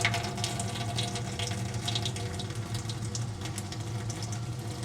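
RO booster pump running with a steady low hum while water runs and trickles through the water-filter system.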